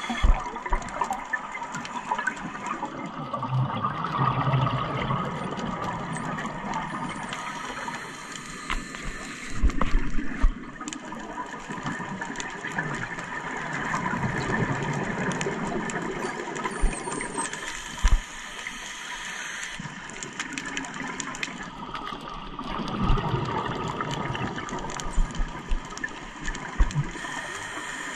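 Scuba diver breathing through a regulator underwater: exhaled bubbles gurgling and rushing in louder bursts every several seconds over a steady watery hiss.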